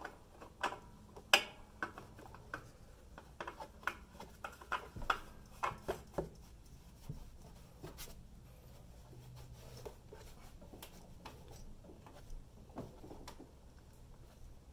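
Light clicks, taps and rubbing as a hand spins a new spin-on oil filter onto its threaded mount, tightening it hand tight. The clicks are busiest in the first six seconds or so and then grow sparse over a faint low hum.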